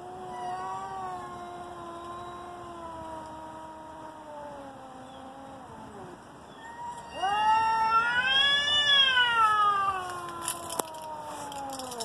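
Domestic cats yowling at each other face to face: the threat calls of two cats squaring off before a fight. There are two long, drawn-out yowls. The first lasts about six seconds and slowly sinks in pitch. The second is louder; it swells up in pitch, peaks, and then slides back down.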